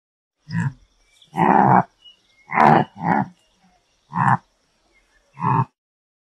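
An antelope calling: six short calls over about five seconds, the second one the longest.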